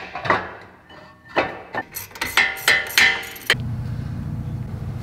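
A run of sharp metallic clinks and knocks from hand tools and metal parts being worked on a brake caliper during fitting. From about three and a half seconds in, they give way to a steady low hum.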